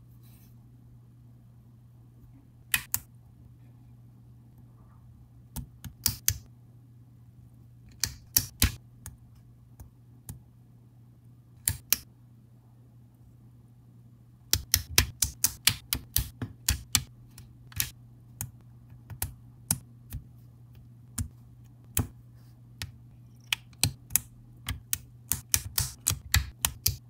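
LEGO plastic pieces clicking as they are snapped and pressed together by hand: sharp clicks, a few singly and in pairs at first, then a quick run of clicks about halfway through and more scattered clicks after it. A faint steady low hum lies underneath.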